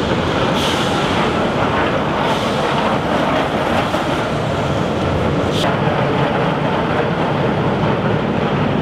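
Soquet steel roller coaster train running along its track, a loud, steady rolling noise, with one short sharp sound about five and a half seconds in.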